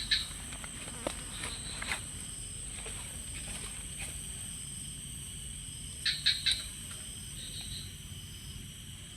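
Crickets trilling steadily and high, with a few short, sharp chirps at the start and a quick cluster of them about six seconds in.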